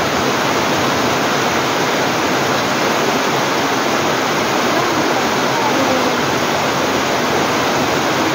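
Heavy typhoon rain falling steadily on trees and roofing, with water pouring off the eaves: a dense, even hiss.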